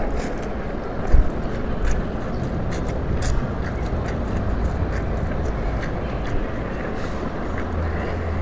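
Close-miked eating of beef noodles: continuous chewing and slurping noise with scattered small wet mouth clicks.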